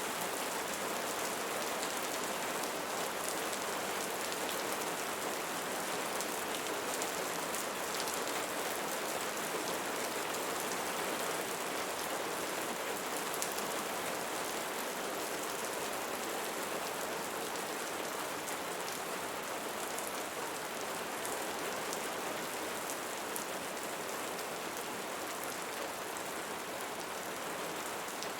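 Steady rainfall pattering on a surface, an even hiss dotted with fine individual drop ticks.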